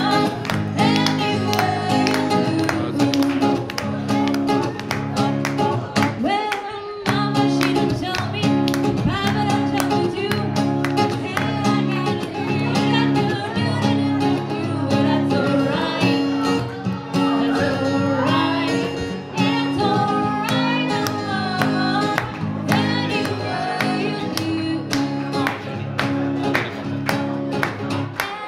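A woman singing into a microphone while strumming an acoustic guitar, played live through a small PA, with a short break in the strumming about six seconds in.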